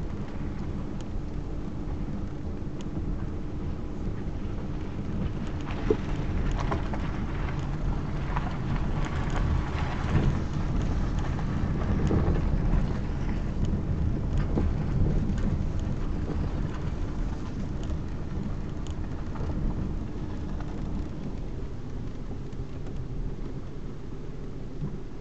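Car driving slowly on a dirt and gravel lane, heard inside the cabin: a steady low engine hum under the rumble and crunch of tyres on the rough surface, which grows louder from about six seconds in and eases off after about sixteen seconds.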